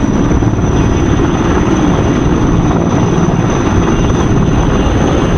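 Firefighting helicopter flying close by: a loud, steady rotor beat and engine noise.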